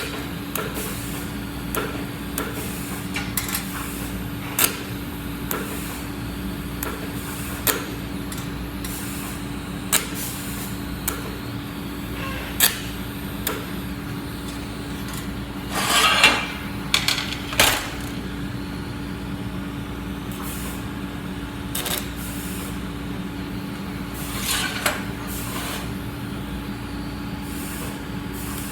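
Welding equipment running with a steady hum, broken by irregular sharp clicks and pops and a few short hissing bursts, two of them about halfway through and one near the end.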